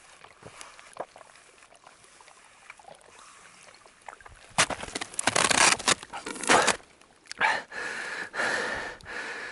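Water sucked up through a hollow dry-grass straw from an icy stream, in noisy slurping sips that start about halfway through, the later ones with a thin steady whistle-like tone. The first half is quiet between sips.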